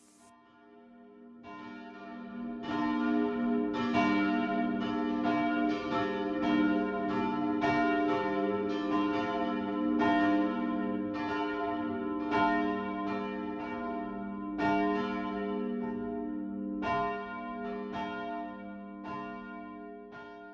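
Church bells ringing, several bells struck one after another at uneven intervals, each strike ringing on under the next. The peal fades in over the first few seconds and fades out at the end.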